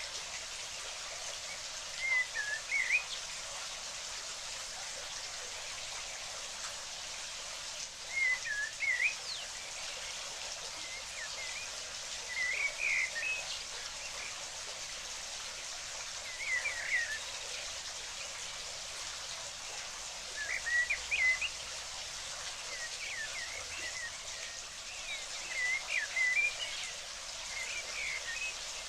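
Steady rush of water, with short bursts of small-bird chirping over it. The chirps are quick rising and falling notes that come about every four seconds.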